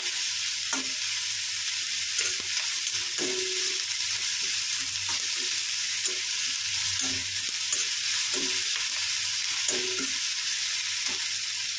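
Chopped onions, garlic, ginger and green chillies sizzling in hot oil in a kadhai, a steady hiss, while a metal spatula stirs and scrapes them around the pan in short, irregular strokes. The onions are being sautéed until lightly browned.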